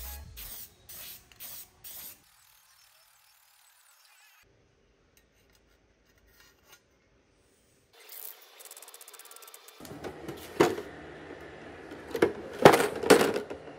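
Music with a beat fades out in the first two seconds, then near silence. Near the end come clatter and several sharp knocks of circuit boards and hard plastic as computer parts (a graphics card and RAM sticks) are handled in a plastic tray.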